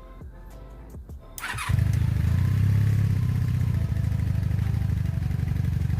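Honda Magna VF750C's V4 engine started about a second and a half in, catching almost at once and then idling steadily with an even low pulse. The owner suspects this engine of a misfire on its right side.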